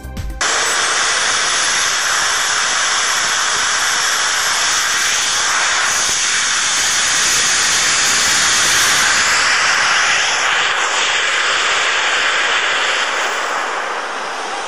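Small turbojet engine of a Mitchell Wing B-10 ultralight flying wing running: a loud, steady jet hiss with a thin high whine. It eases off a little near the end as the aircraft moves away.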